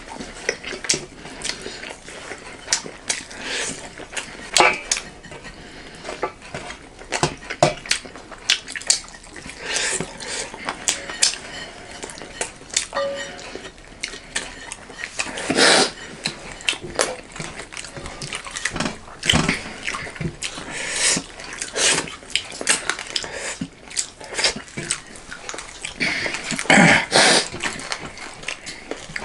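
Close-miked eating sounds: irregular chewing and lip smacking, with scattered clicks and the odd clink of dishes or cutlery.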